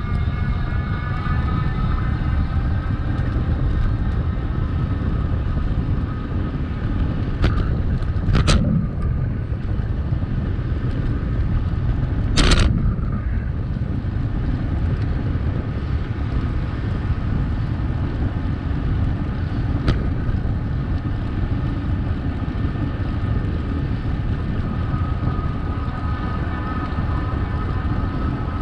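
Steady rumbling noise of a bicycle being ridden, with a faint wavering hum over it and a few sharp knocks about eight and twelve seconds in.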